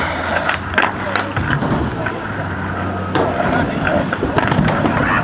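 Skateboard wheels rolling on concrete, with a few sharp clacks of boards. Wind rumble on the microphone and some background voices are mixed in.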